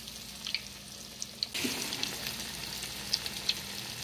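Fish patties frying in shallow olive oil in a cast-iron skillet: a steady sizzle with scattered sharp pops and spits, growing louder about a second and a half in.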